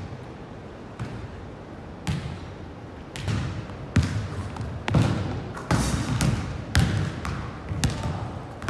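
Basketball bouncing on a hardwood gym floor, a string of echoing thuds. They come about once a second at first, then closer together in the second half.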